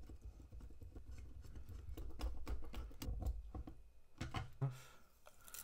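Light plastic clicks and taps from a power-pole distribution board being handled and pressed into its small plastic case, irregular and close.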